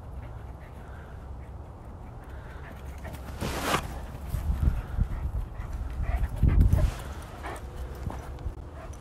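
A large livestock guardian dog giving one short call about three and a half seconds in, with low thumps of footsteps and movement on frozen ground, loudest near the middle.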